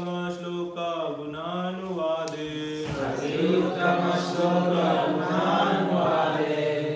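Sanskrit verse chanted to a slow, held melody: one man's voice for about the first three seconds, then a group of voices chanting the line back together.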